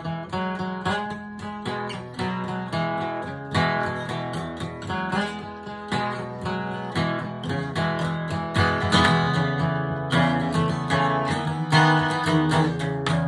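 Acoustic guitar playing a fingerpicked introduction, with a steady run of plucked notes over a repeating bass line.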